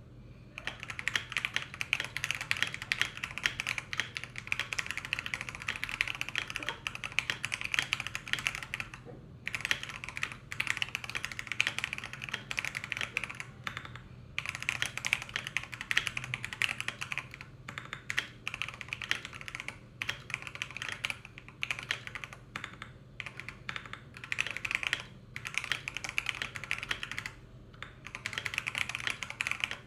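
Continuous fast typing on a Feker 84T mechanical keyboard with Akko Jelly White switches lubed with Krytox 205g0, ASA-profile keycaps and a steel plate in an o-ring tray-mount, rubber-dampened case. There are a few short pauses between bursts of keystrokes.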